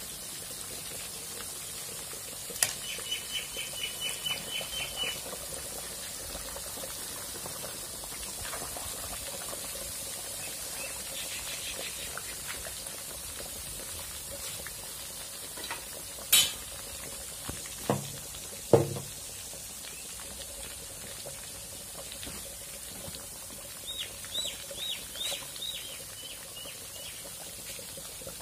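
Steady sizzling hiss of chicken frying in a pan, broken by a few sharp knocks of a utensil against the pan, two of them deeper clanks. Two short runs of rapid high chirping notes come about three seconds in and again near the end.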